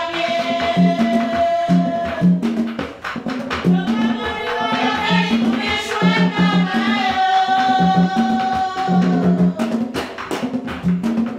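Women singing a Haitian Vodou ceremonial song over drums, with long held notes near the start and again about seven seconds in. Low drum strokes beat steadily, and sharp percussive clicks run through the song.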